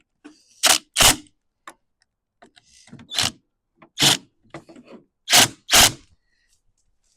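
Wrench tightening the bar nuts on a McCulloch 3516 chainsaw: a series of six short, sharp clacks, several of them in close pairs, with faint scraping between.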